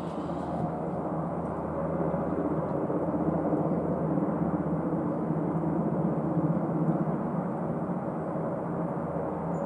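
Antonov An-28's twin turboprop engines running as it taxis, a steady drone with propeller hum that grows a little louder about two seconds in.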